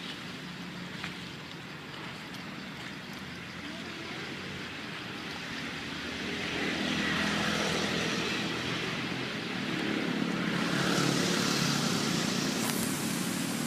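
Distant motor-vehicle noise passing by, swelling about six seconds in and again around ten seconds in, over a steady outdoor hum.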